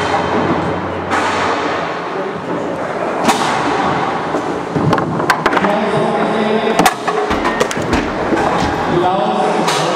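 Table football being played: sharp knocks of the ball being struck by the players' figures and hitting the table, with the rods clunking. The loudest cracks come about 3 s in and near 7 s, over steady crowd chatter and background music.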